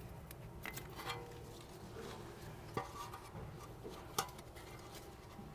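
Faint clicks and taps of gloved hands fitting the brake pad wear sensor's electrical connector at the front brake caliper, with two sharper clicks about three and four seconds in.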